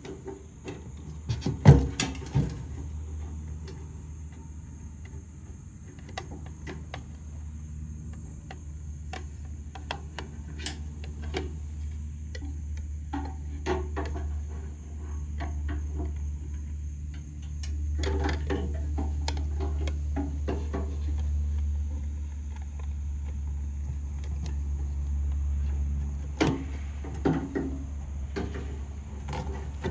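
Short clicks and knocks of a car's fuel pump assembly being handled as its fuel-level float is fitted, with a sharp knock about two seconds in, over a steady low hum.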